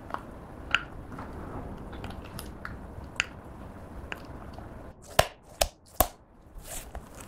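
Plastic spoon stirring thick clear slime coloured with green eyeshadow and lipstick in a cup, with small wet clicks and crackles. About five seconds in, three sharp slaps as the ball of slime is pressed between the hands.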